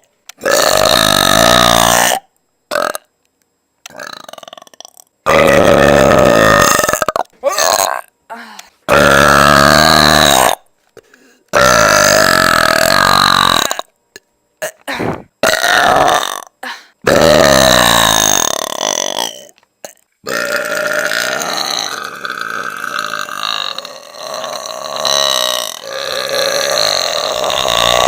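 A woman belching loudly and deeply, like a man, over and over. About five long belches of around two seconds each come in the first twenty seconds, with shorter ones between them, then a quieter, rougher stretch of sound.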